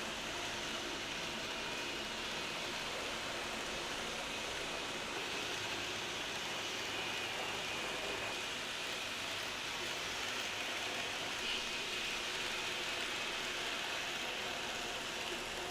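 Kato N scale Doctor Yellow Shinkansen model running on track: a steady whirring hiss with a faint high motor whine.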